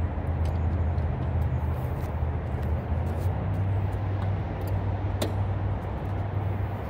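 Honda walk-behind lawn mower's small four-stroke engine running steadily. A few sharp clicks sound over it, the loudest about five seconds in, as the mower's cutting height is raised to 4 inches.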